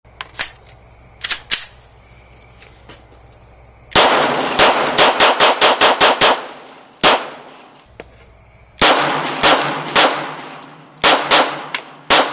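Glock pistol firing: a few single shots, then several quick strings of rapid semi-automatic fire at about four shots a second, each shot sharp with a short ringing echo.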